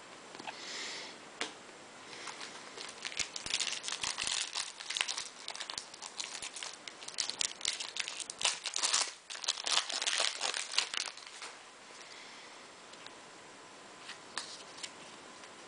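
A foil Bowman baseball-card pack being torn open and crinkled by hand: a dense run of crinkling and tearing wrapper sounds that dies down about eleven seconds in.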